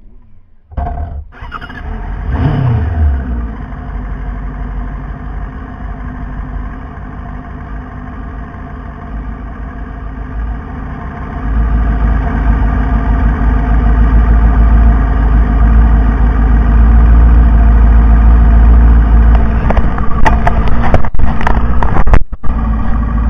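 Motorcycle engine starting, blipped once about two seconds in, then idling with a low rumble that grows louder about halfway through. A few sharp knocks near the end.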